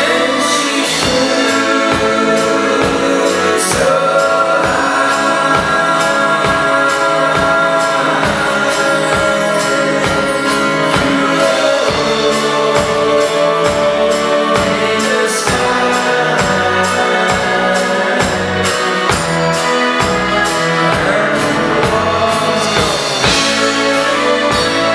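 Live pop-rock band playing, with several voices singing long held notes over a steady drum beat.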